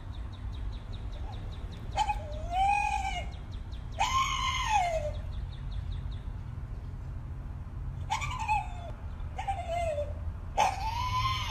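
A stocky bulldog-type dog giving five strange, drawn-out cries, each rising and then falling in pitch, with a steady low rumble underneath.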